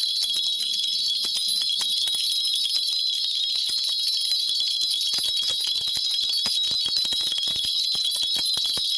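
A cluster of small metal jingle bells shaken continuously at an even pace: the kind of bell cluster a Korean shaman shakes during a divination reading.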